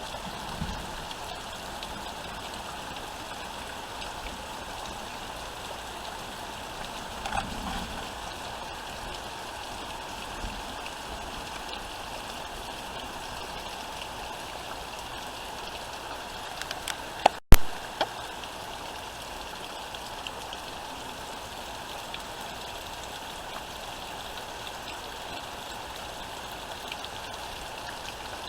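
Heavy rain falling steadily, with a couple of brief low thumps and one sharp, loud click a little past the middle.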